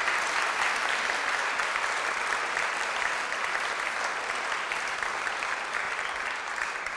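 Audience applauding, a dense, even clapping that eases off a little near the end.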